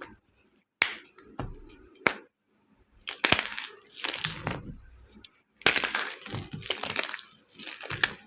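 Homemade dyed gym chalk blocks being crushed by hand, in several bursts: each starts with a sharp crack as a block breaks, then crumbles with a dense dry crunch.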